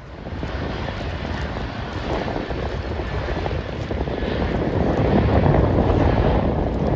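Twin-engine jet airliner flying low overhead, its engine noise growing steadily louder and loudest near the end.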